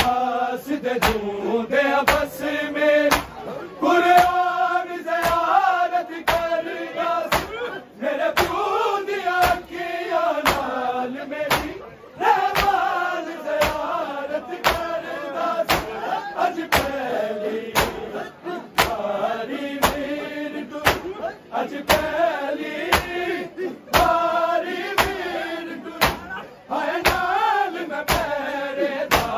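Men's voices chanting a noha, a Shia mourning lament, over rhythmic matam. Open hands strike chests in steady time, about one and a half sharp slaps a second.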